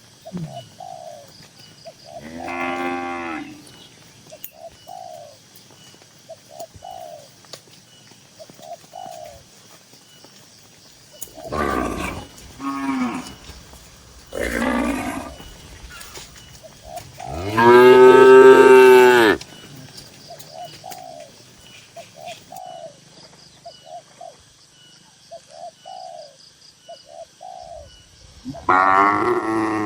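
Cattle mooing: about six moos from several cows, the loudest a long one about two-thirds of the way through. Between the moos a faint short call repeats about once a second.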